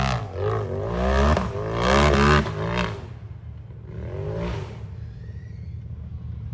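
A racing UTV engine revving hard in repeated rising surges, then backing off about three seconds in, with one more short rev a second later and then a low rumble.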